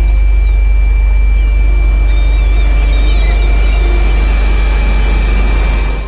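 Loud, steady low electrical hum with a steady high-pitched whine over it, and faint bird chirps about halfway through; the hum cuts off abruptly at the end.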